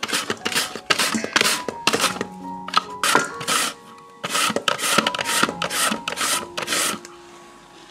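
Young pumpkin being shredded on a hand grater into a steel bowl: quick rasping strokes, about three a second, with a short pause midway, stopping a second before the end.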